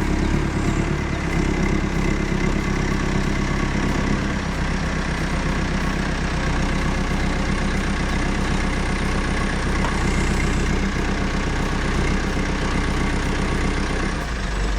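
An engine running steadily at a constant speed, with a deep hum.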